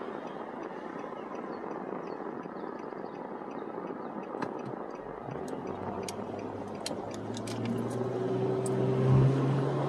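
Car interior noise while waiting at a junction, then the engine's hum rises and grows louder as the car pulls away and turns. A few light clicks come in the middle, and a short thump comes near the end.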